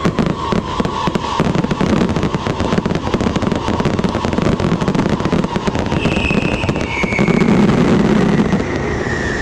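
New Year fireworks display: dense, rapid crackling and popping of aerial shells, going on without a break.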